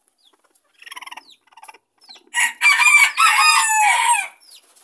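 Chickens clucking softly in a quick run, then a bantam rooster crows loudly, a multi-part crow of nearly two seconds that drops in pitch at its end.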